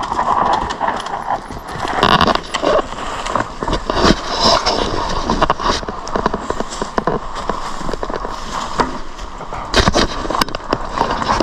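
Mountain bikes riding down a dry dirt trail covered in dead leaves: knobby tyres crunching and skidding over dirt and leaves, with many sharp clicks and rattles from the bikes. One rider comes through near the start and another approaches near the end.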